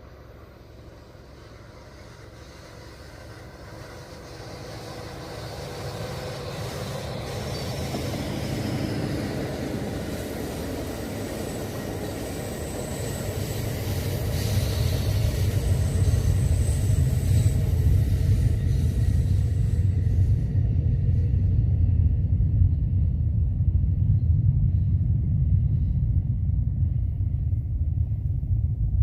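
Distant SpaceX rocket launch rumble: a deep, steady rumble that builds louder through the first twenty seconds or so, then holds.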